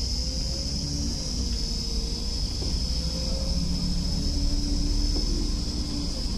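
Interior running noise of a LiAZ 5292.22 city bus driving along: a steady low rumble with a faint drivetrain hum that rises and falls in pitch as the bus changes speed.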